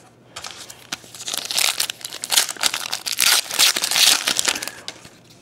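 Foil wrapper of a 2011 Prestige football card pack crinkling and rustling as it is torn open by hand. The crackling is loudest through the middle and fades near the end.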